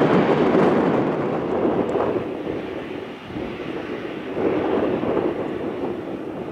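Airbus A320's CFM56 jet engines running as the airliner rolls on the ground, a steady rushing jet noise that swells just after the start and again about four and a half seconds in.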